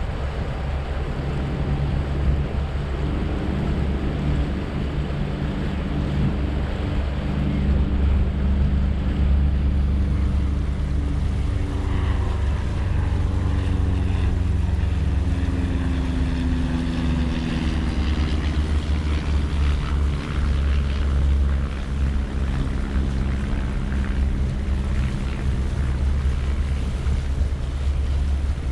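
Mercruiser 7.4-litre V8 inboard engine of a Sea Ray Sundancer cruiser droning steadily under way, with water and wind rushing past the bow. The hiss of water and wind grows louder about ten seconds in, and the engine note wavers in pitch around the middle.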